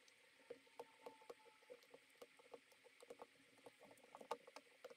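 Near silence broken by faint, scattered small clicks and taps, irregularly spaced: jumper wires being handled with tweezers and plastic solderless breadboards being worked by hand.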